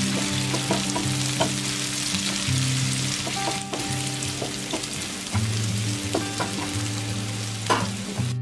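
Sliced onions and dried red chillies frying in hot oil in a nonstick pan, sizzling steadily as a wooden spatula stirs them, with occasional clicks of the spatula against the pan. Soft background music plays underneath.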